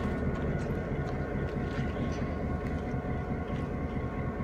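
EMD GP7 diesel road-switcher's two-stroke V16 engine running as the locomotive rolls slowly away, a steady low rumble with a thin steady whine above it. A few faint clicks.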